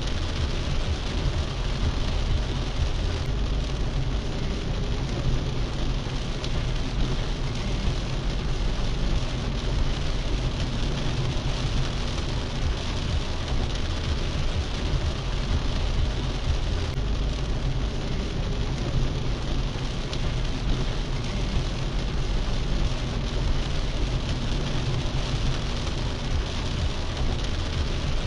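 Heavy rain falling on a car's roof and windshield, heard from inside the moving car. Under it runs a steady low rumble of the car and its tyres on the flooded road.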